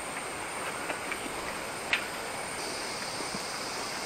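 Steady rainforest background hiss, with a high insect drone, typical of cicadas or crickets, coming in a little past halfway and one faint click near the middle.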